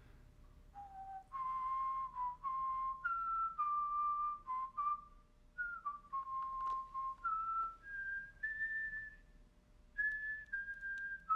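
A person whistling a slow tune by mouth: clear held notes that step up and down in pitch, one after another.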